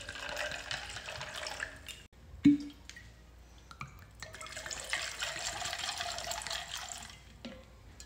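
Liquid poured from bottles over ice into a stainless steel cocktail shaker: margarita mix for about two seconds, then tequila for about three seconds. A single knock comes between the two pours, as the bottles are swapped.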